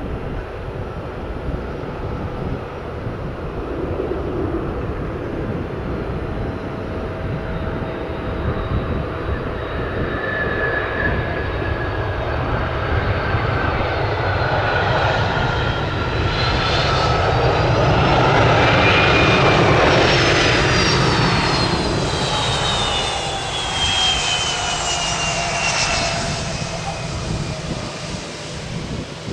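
Boeing 757-200 jet airliner landing and rolling out along the runway. Its jet engine noise builds to a peak about two-thirds of the way through as it passes. After that, a whine from the engines drops in pitch as it moves away.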